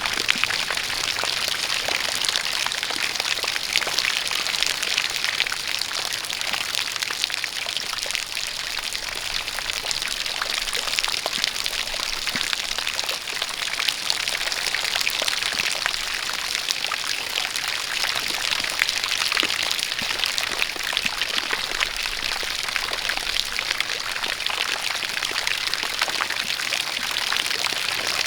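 Steady rain falling with a continuous pouring stream of water, dense pattering of drops over an even rushing hiss.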